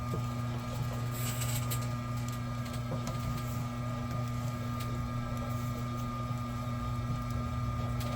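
Vevor electric wire stripping machine's motor running with a steady hum, drawing a thick cord through its rollers and blade to slit the outer sheath open. A few light clicks are heard about a second in and around three seconds in.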